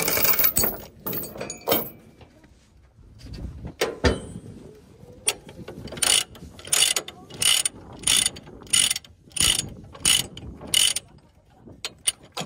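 Steel tie-down chain rattling against a wheel hub, then a ratchet load binder cranked by its handle, its pawl clicking about eight times at an even pace of roughly one every two-thirds of a second as the chain is worked loose.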